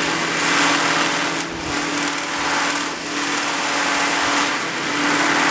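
Flap sanding drum spinning on a drill press, its abrasive flaps sanding rustic wood with a steady hum and a hiss. The sound eases briefly a few times as the wood is worked against the drum.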